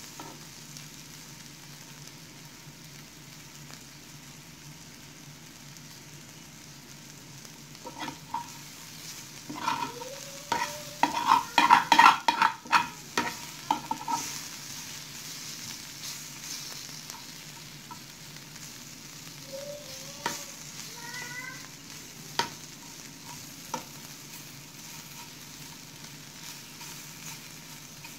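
Bitter gourd slices sizzling softly as they dry-fry in a nonstick pan, nearly crisp. A utensil stirs and scrapes them around the pan in a burst of clinks and scrapes about ten to fourteen seconds in, followed by a few single clinks.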